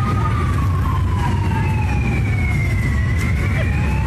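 A siren wailing slowly: one tone falls for about three seconds, then starts rising again near the end, over a steady low rumble.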